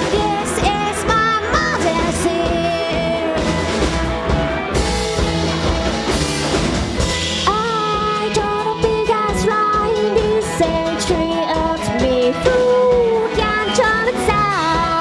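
Rock band playing an instrumental stretch between verses, with drum kit, bass and electric guitar, and a pitched lead line sliding and bending over the steady beat.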